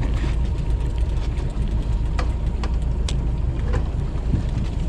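Boat motor running steadily at trolling speed, a low even hum, with a few faint brief clicks over it.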